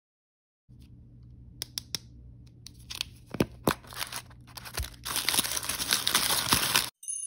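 Hands opening an L.O.L. Surprise plastic ball, with several sharp plastic clicks and snaps. Then the crinkly wrapper inside is unwrapped and crumpled, giving a dense, loud crinkling for about two seconds near the end.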